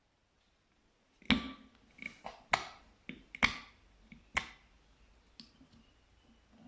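Slime being squeezed and pressed by hand, giving a series of sharp, irregular clicks and pops, about half a dozen, starting a little over a second in.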